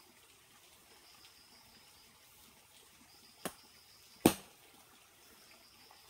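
Two sharp strikes of a hoe blade chopping into the earth, under a second apart, the second much louder. Under them, a faint trickle of stream water and a high buzzing that comes and goes.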